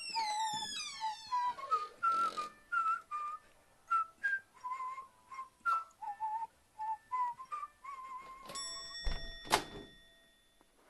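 A whistled tune of short, clean notes playing as background music. Over the first two seconds a falling, sliding sound effect sweeps down through it, and near the end a ringing chime and a quick whoosh sound.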